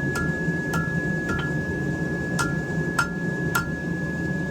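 Hand hammer striking hot steel on an anvil while forging out a knife's tang: three blows about half a second apart, a pause, then three more, each with a short ring, over a steady hum.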